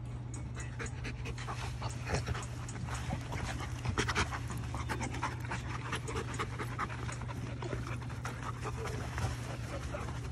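Giant Schnauzers panting rapidly, the breaths loudest about four seconds in.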